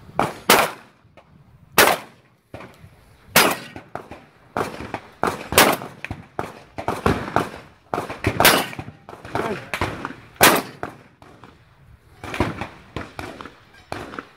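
Shotgun fired repeatedly at steel plate targets, loud shots about one to three seconds apart, with smaller metallic clacks between them.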